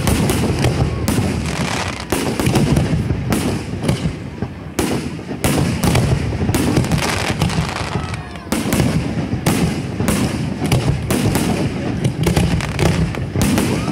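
Fireworks display going off in a dense, continuous barrage of bursts and crackling, many sharp reports a second overlapping one another, with a brief lull about eight and a half seconds in.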